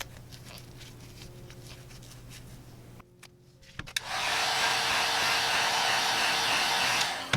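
Heat gun blowing hot air steadily for about three seconds, switched on about four seconds in and cut off sharply near the end, heating the phone's back glass to soften its adhesive.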